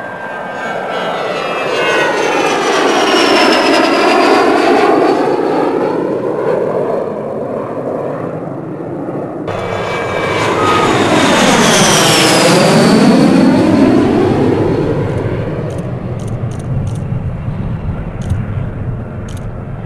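HondaJet twin-turbofan business jet passing low by twice, each pass a loud jet whine that falls in pitch as it goes by. An abrupt cut between the two passes comes about nine and a half seconds in.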